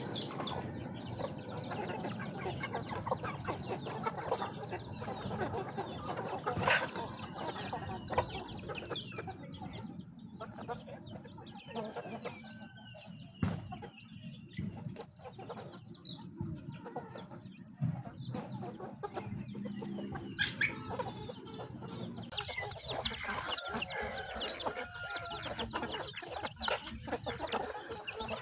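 A flock of chickens clucking while they peck at feed, with many small pecking clicks among the calls.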